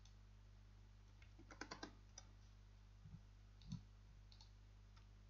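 Faint computer keyboard keystrokes: a quick run of about five taps about a second and a half in, then a few scattered clicks and a soft thump, over near silence.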